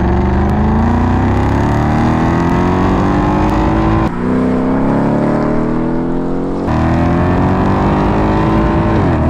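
A Ford Mustang GT's 5.0-litre V8 accelerating hard through a Remus non-resonated cat-back exhaust. The note climbs steadily in pitch, drops on an upshift about four seconds in and again nearly seven seconds in, climbs again each time, and falls away as the throttle lifts at the very end.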